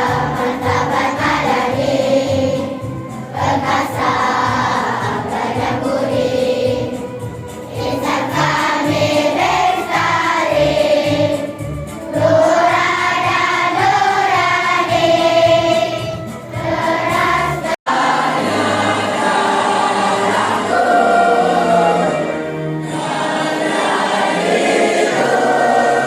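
A group of voices singing a song over instrumental backing with a steady beat, cut off for an instant about eighteen seconds in before the singing carries on.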